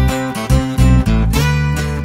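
Background music led by strummed acoustic guitar, with steady changing chords and a strong low bass line.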